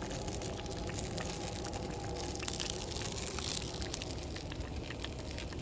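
Cooking fire under grilling chicken crackling, with many small sharp pops throughout, over a steady low rumble.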